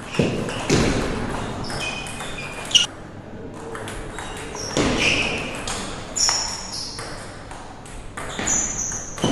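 Table tennis ball clicking off paddles and bouncing on the table during a rally, a series of sharp pings with a ringing echo of a large hall.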